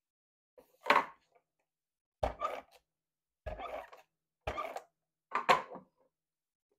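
Paper photos and cardstock being slid, pressed and handled on a cutting mat: five short rustling, scraping sounds about a second apart.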